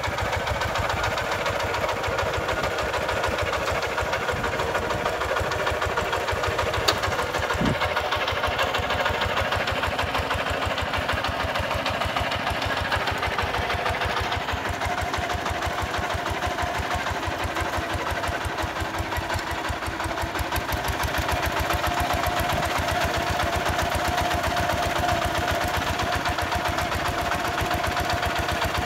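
Kubota RT140 two-wheel walking tractor's single-cylinder diesel engine chugging steadily under way, pulling its trailer, with an even stream of firing beats.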